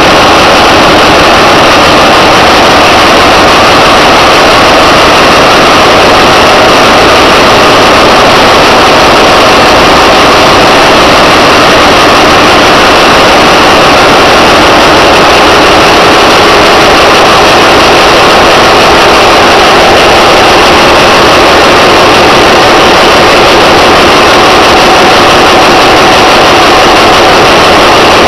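Very loud, steady drone of running engines, the continuous machinery noise of a ship's engine room, with no change through the whole stretch.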